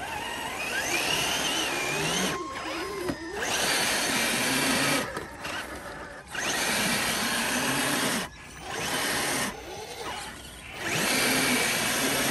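Radio-controlled scale crawler's electric motor and geared drivetrain whining in about five bursts as the throttle is applied and released, with short pauses between them; the pitch rises and falls with motor speed.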